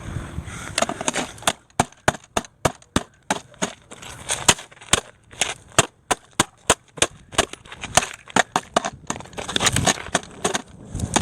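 A long run of sharp taps, irregular at about two to three a second.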